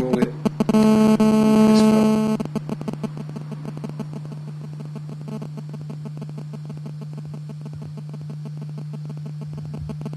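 Handheld RF detector's speaker sounding a mobile phone's transmission: a loud electronic buzz for about a second and a half, then a fainter rapid crackle of pulses over a steady low hum.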